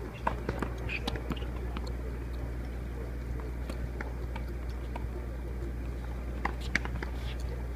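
Tennis balls struck with racquets in a practice rally: sharp pops at irregular intervals, the loudest about seven seconds in, over a murmur of spectators talking and a steady low rumble.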